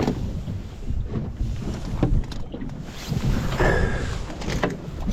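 Wind buffeting the microphone, a steady low rumble, with a few sharp knocks and a brief rustle about three and a half seconds in.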